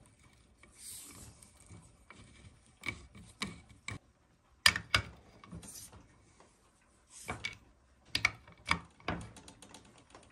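Metal tool clicks and clinks with some scraping as a socket on a breaker bar tightens the nut on a motorized bike engine's drive sprocket: irregular single clicks, then a quick cluster of clicks near the end.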